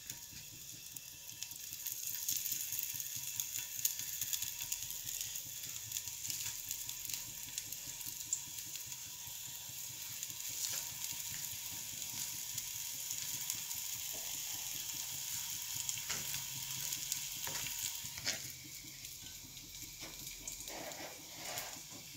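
Oil sizzling in a non-stick frying pan as pieces of methi muthiya dough (fenugreek, gram and rice flour) are laid in one by one to shallow-fry. The sizzle grows louder about two seconds in, with a few faint clicks.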